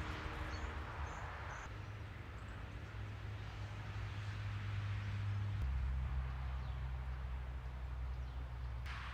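Wind rumbling on the microphone outdoors, a steady low rumble that drops a little in pitch about halfway through, with a few faint high bird chirps in the first second or two.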